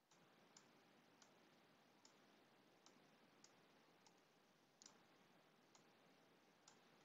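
Faint, sharp computer mouse clicks, about nine spaced irregularly roughly a second apart, over near silence.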